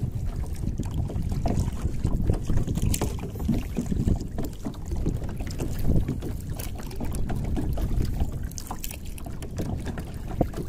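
Kayak paddle blades dipping and splashing into choppy sea water, strokes coming every second or two, over a steady low rumble of wind on the microphone.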